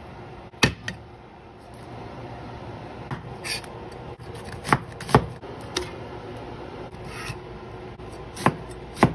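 A wide-bladed kitchen knife slicing through red onion and tomato on a wooden cutting board, the blade knocking against the board in sharp, irregularly spaced strikes, about eight in all.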